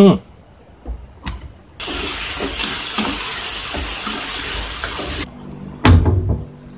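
Pork, onions and green beans sizzling loudly in a frying pan while being stir-fried with a wooden spatula. The sizzle is steady for about three and a half seconds and cuts off suddenly. Before it comes a brief falling sound at the very start; after it, a thump as green beans are laid on a cutting board, over soft music.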